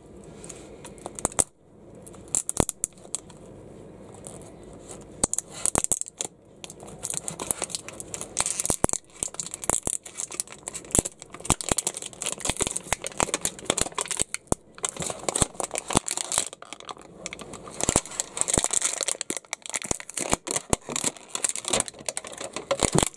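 The crinkly plastic and paper wrapping layers of an L.O.L. Surprise Under Wraps capsule being peeled and torn off by hand: irregular crackling, crinkling and tearing with many sharp clicks.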